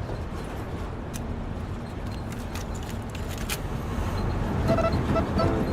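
Steady low vehicle rumble with a few sharp clicks, then music starts about four and a half seconds in: the Finnish tango that has just been put on.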